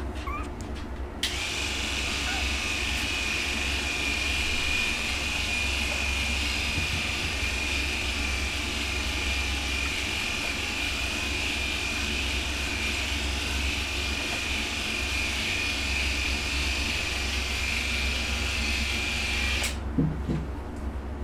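A puppy gives a brief squeak at the very start. About a second in, a steady mechanical hiss with a high whine switches on, then cuts off abruptly near the end.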